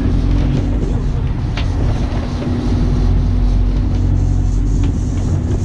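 Fishing boat's engine running steadily with a low hum and a constant drone, under wind and water noise, with a couple of short clicks.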